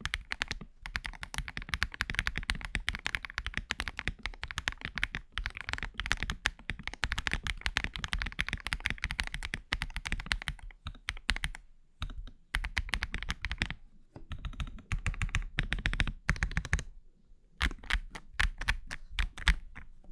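Fast typing on an Akko ACR Pro 75, a gasket-mounted acrylic mechanical keyboard: a dense stream of key clacks with a couple of short pauses, slowing to a few separate keystrokes near the end.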